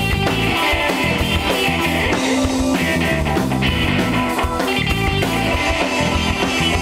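Rock band playing an instrumental intro: electric guitar over bass and drum kit, steady and loud.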